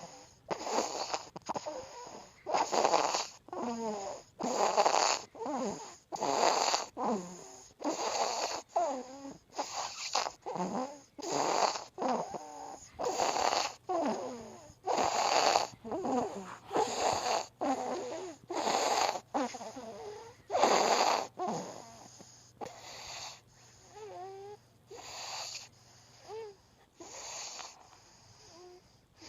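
A three-month-old baby snoring in sleep: a rhythmic run of snuffly breaths, about one a second, many with a squeaky, whistling edge, growing quieter and sparser in the last few seconds.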